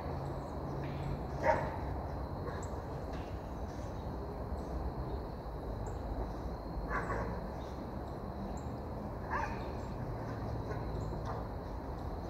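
A few short dog barks, about a second in, around seven seconds and again near nine and a half seconds, over a steady low background noise.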